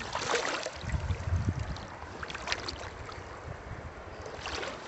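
Shallow river water sloshing and splashing around hands held in the current, as a caught trout is held in the shallows to revive before release. A few short splashes come near the start, in the middle and near the end, with a low rumble about a second in.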